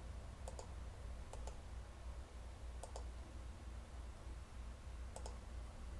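Faint computer mouse clicks, four quick double clicks spread over a few seconds, over a low steady hum.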